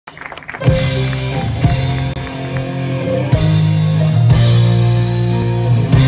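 Live rock band playing through a PA: electric guitar, bass guitar and drum kit, kicking in with a hit under a second in and punctuated by sharp accented hits.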